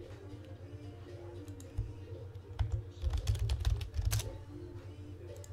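Computer keyboard being typed on in scattered clicks and taps, busiest in the middle, over a steady low hum.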